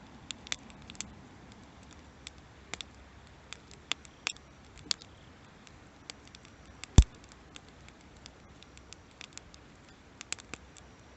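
Wood campfire crackling: irregular sharp pops and snaps over a low, steady background, with one much louder pop about seven seconds in.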